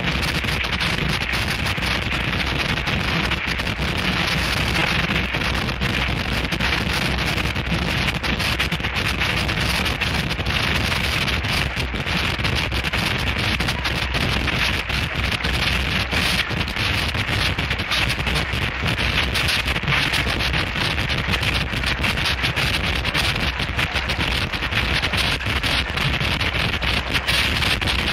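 Harsh noise music: a dense, unbroken wall of distorted static with constant crackle, spread across the whole range from deep rumble to hiss, holding steady without rhythm or pitch.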